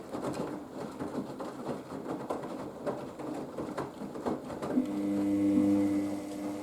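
Haier HWD 120 washer-dryer in the main wash of its 15-minute Express cycle: wet laundry tumbling and water sloshing in the turning drum, then about five seconds in a steady hum starts and continues.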